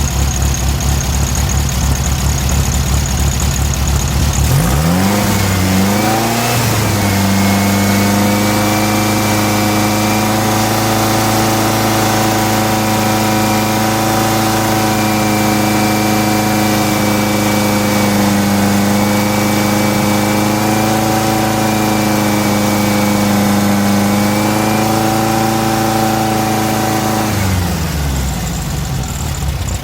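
Air-cooled Volkswagen flat-four engine idling, then revved up about four seconds in and held at a steady higher speed for some twenty seconds before dropping back to idle near the end. The engine is running on a newly fitted Magnaspark II electronic distributor while its ignition timing is set at 29 degrees.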